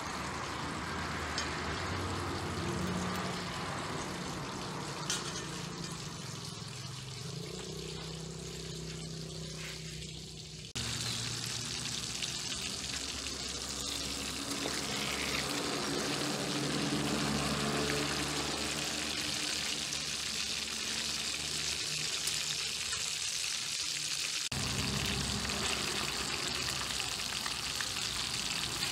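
Chicken pieces deep-frying in hot oil in a wok: a steady sizzling hiss that starts abruptly about eleven seconds in. Before that comes a quieter stretch with a low steady hum and a single click.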